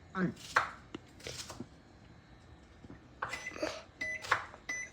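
Samsung microwave oven's control panel beeping as its buttons are pressed: about three short, high electronic beeps in the second half, with a few faint clicks and rustles before them.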